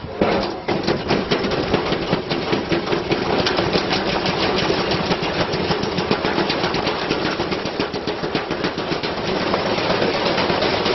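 Washing machine spinning with a heavy object inside, the unbalanced drum banging in a fast, continuous rattle over the steady hum of the motor. It starts abruptly and keeps up at full force.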